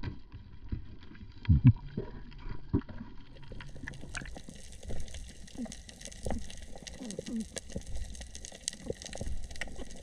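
Water gurgling and sloshing around the microphone, with many scattered clicks and small knocks and a louder thump about one and a half seconds in.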